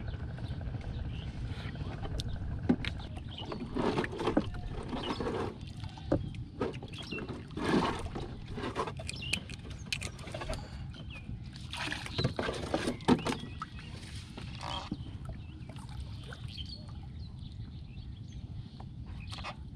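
Knocks and rustles from handling fishing line and net in a wooden boat, scattered irregularly over a steady low rumble of wind and water.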